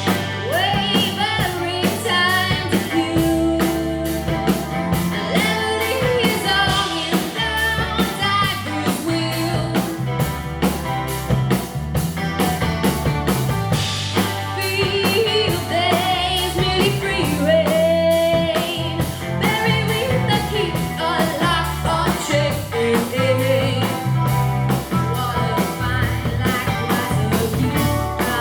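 A live pop-rock band playing: a Gretsch electric guitar, bass guitar and drum kit keep a steady beat. A lead line on top wavers and bends.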